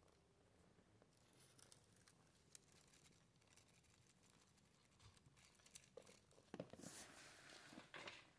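Faint crinkling and light taps of a crumpled paper ball being batted about a wooden floor by a kitten, with a louder spell of rustling near the end.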